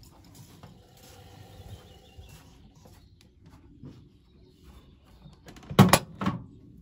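Laundry rustling as it is pushed into the drum of an Atlant 45Y82 front-loading washing machine, then the door pushed shut near the end with a loud thud and a second knock about half a second later as it latches.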